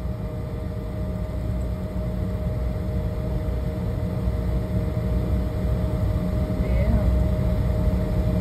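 Jet airliner cabin noise while taxiing after landing: a steady low rumble with a steady engine hum, slowly growing louder. A faint brief voice about seven seconds in.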